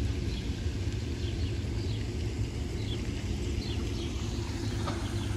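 Outdoor ambience: a steady low rumble with faint, high bird chirps now and then.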